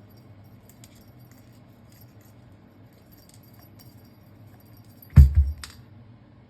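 Light, scattered jingling and clinking of a small cat toy being batted about by a kitten, with one loud thump about five seconds in.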